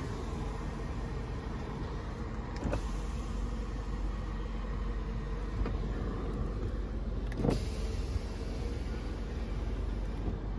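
Electric power window motors of a 2001 BMW 540i running as the windows are worked, over a steady low hum. There are a few short clicks and a louder thump about seven and a half seconds in.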